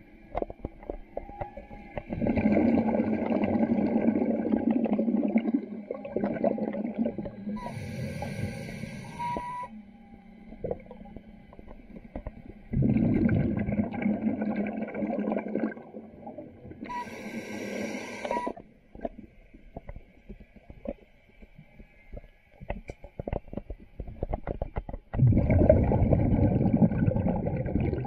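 Scuba diver breathing through a regulator underwater: three long rushes of exhaled bubbles, with two short hissing inhales through the regulator between them, and faint clicks and crackles in the pauses.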